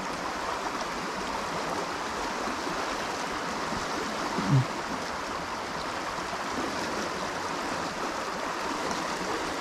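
A shallow, riffled river rushes and flows steadily around the wading angler. A brief vocal sound comes about halfway through.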